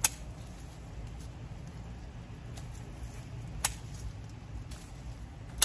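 Clippers snipping through softwood stems of a Turk's cap plant, three sharp snips (one right away, one about three and a half seconds in, one at the end), with faint rustling of leaves and stems between them.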